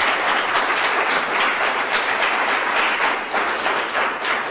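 Audience applauding: a dense patter of many hands clapping, easing off near the end.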